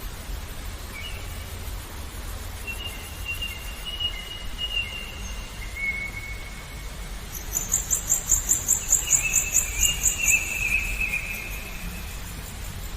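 Songbirds whistling long, thin, drawn-out notes, with a rapid, high, pulsing trill from about halfway in to near the end that is the loudest sound. Underneath runs a steady low hiss of murmuring water.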